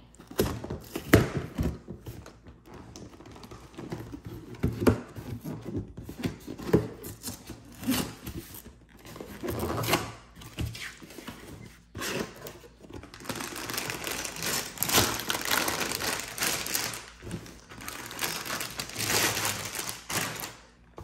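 A cardboard Lego box being opened by hand: knocks and scrapes as the perforated flap is torn open. From about two-thirds of the way in, a long stretch of crinkling plastic bags, with loose Lego pieces rattling inside them, as the bags are pulled out.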